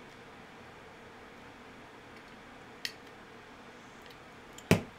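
Small clicks from a folding knife being handled at the end of its reassembly: a faint click about three seconds in, then one sharp, louder click near the end.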